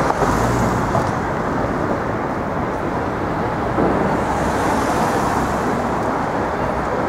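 Steady city street traffic noise, with a hiss swelling briefly around the middle.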